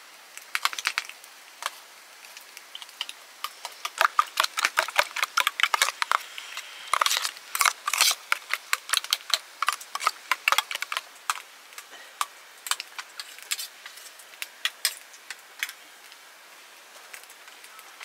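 A metal spoon beating eggs in a small steel bowl: quick runs of sharp clinks of the spoon against the bowl, busiest in the middle, thinning out and stopping a few seconds before the end.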